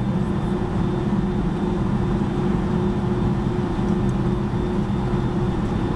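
Cabin noise inside a Boeing 757-200 taxiing after landing: the engines at idle with the airframe give a steady low drone, with a few steady hums over a rumble.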